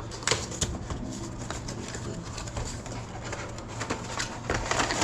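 Box contents being handled: rustling and sharp clicks of packaging, busiest near the start and again near the end. A pigeon coos faintly in the background.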